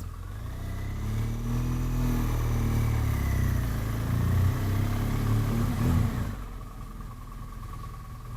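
BMW R1200GS flat-twin engine pulling away at low speed, its note rising and dipping as it accelerates and shifts, then dropping to a quieter, steady run about six seconds in.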